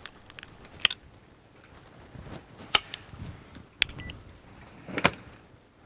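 Several sharp, separate clicks and knocks of deadbolt lock parts being fitted and seated into a door, about one a second.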